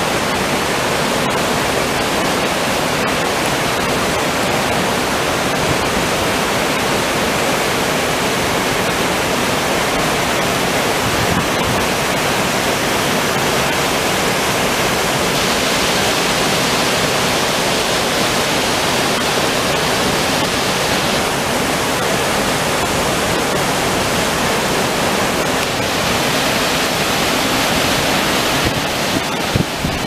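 Ryuzu Falls, a cascade waterfall edged with ice, rushing steadily over rock. There are a few brief knocks near the end.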